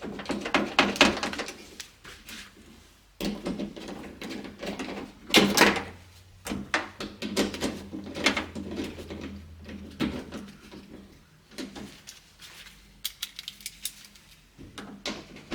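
Socket ratchet clicking in short runs, tightening the 10 mm nuts that hold a sliding door handle, with knocks and rattles of the handle and tools being handled.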